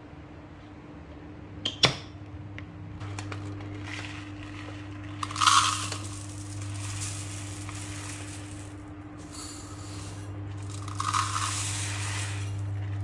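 Dry basmati rice grains pouring from a box into a plastic measuring cup, in two pours about six seconds apart, over a steady low hum. A single sharp knock comes about two seconds in.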